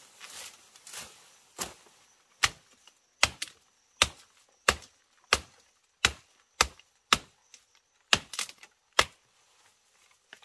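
Repeated chopping into wood, about a dozen sharp strikes at a steady pace of roughly one every two-thirds of a second, starting about a second and a half in. The work is typical of hacking out a wooden trough by hand.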